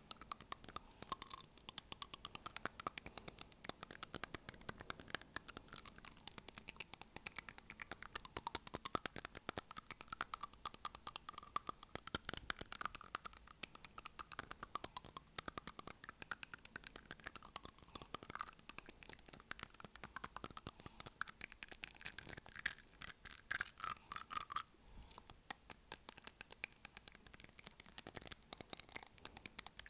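Rapid, dense clicking of long acrylic fingernails tapping on front teeth, close to an earphone-cable microphone, with a brief pause about 25 seconds in.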